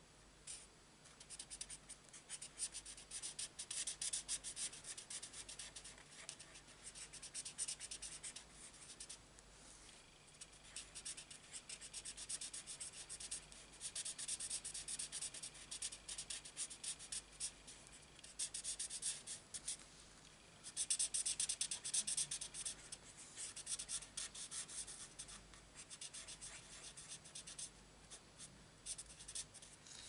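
Felt-tip marker rubbing on cardstock in quick back-and-forth colouring strokes, a fine scratchy sound that comes in runs with short pauses between, loudest a little after two-thirds of the way through.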